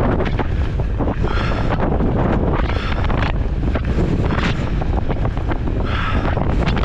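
Strong wind buffeting the microphone on a mountain bike descent: a heavy, steady low rumble with louder hissing surges every second or so, and scattered clicks and rattles.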